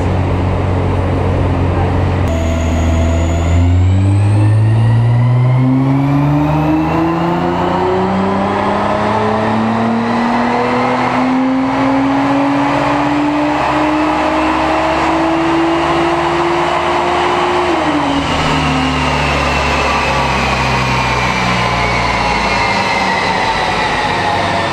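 Nissan GT-R's twin-turbo V6 doing a power run on a rolling-road dyno. It idles at first, then the revs climb steadily in one long pull for about fourteen seconds, cut off sharply as the throttle is lifted, and wind back down.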